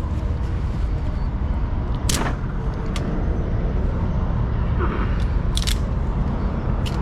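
Ratchet strap being released: a few sharp metal clicks, a close pair of them near the end, over a steady low background rumble.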